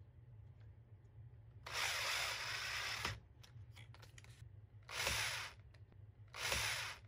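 Cordless drill with a 5/64-inch bit pre-drilling pilot holes in the CNC's YZ plate, run in three bursts: one of about a second and a half, then two short ones. Each has a thin high motor whine, and there are faint handling clicks between them.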